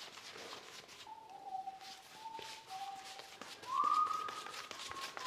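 A person whistling a slow tune of held notes, the highest and loudest about four seconds in, over the soft repeated swish of a paint brush stroking down a plastered wall.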